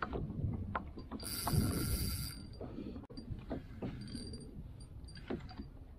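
A spinning reel's drag buzzing for about a second as a hooked fish pulls line against the bent rod. Around it are scattered knocks and clicks, with low water and wind noise.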